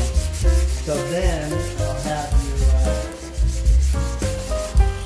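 Hand sanding of a wooden board: sandpaper rubbed back and forth over the wood in quick strokes, with background music and a steady beat underneath.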